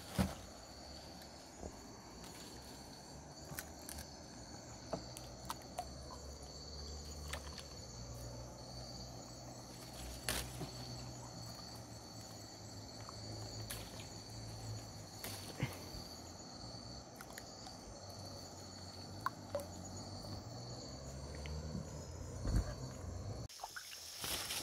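Insects trilling steadily in a high, even tone, with scattered faint clicks and taps; the trill stops abruptly near the end.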